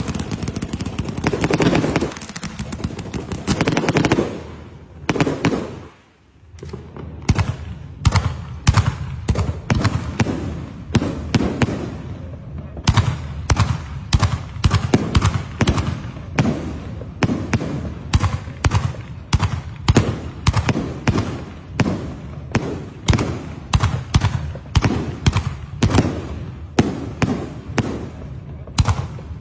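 Fireworks display: dense crackling and bangs for the first few seconds, a short lull around six seconds in, then a steady run of sharp bangs about two a second as aerial shells are fired and burst.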